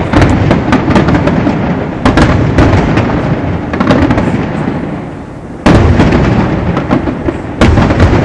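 Aerial fireworks bursting in quick succession: a dense run of cracks and bangs over a low rumble, easing off briefly about five seconds in before loud bursts start again.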